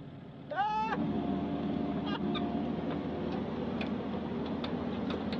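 Excavator engine running steadily while the bucket is worked, with a few faint light clicks.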